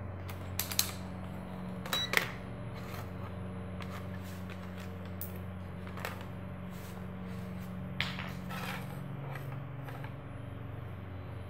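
Sharp clicks and knocks from handling a digital multimeter and its probes, loudest about two seconds in, with a softer click later on. A steady low hum runs underneath.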